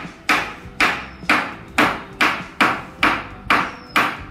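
A hammer striking wood in steady, evenly spaced blows, about two a second, nine blows in all. The work is on a wooden door frame that woodworm has eaten through.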